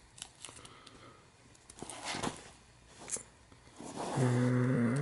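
Faint rustles and light taps from handling pieces of peeled sticker label against a camera body. Near the end a man hums a steady, level 'mmm' for about a second, the loudest sound here.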